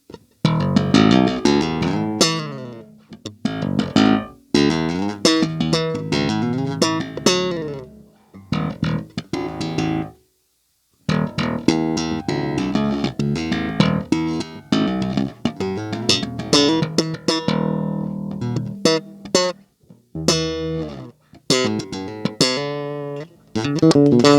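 Bass guitar strung with boiled strings, played as a run of plucked notes and phrases; the notes ring bright, with plenty of overtones. Playing stops for about a second around ten seconds in, then resumes.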